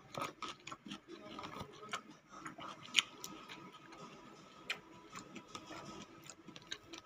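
Close-up eating sounds: a metal fork clicking and scraping irregularly against plastic food containers while picking up pieces of papaya, with the sharpest click about three seconds in. A faint steady whine runs underneath.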